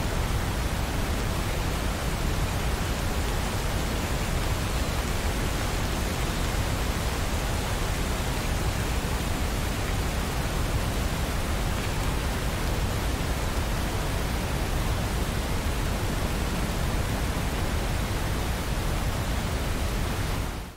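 Heavy rain falling, a steady even hiss with no separate drops standing out, cutting off suddenly at the end.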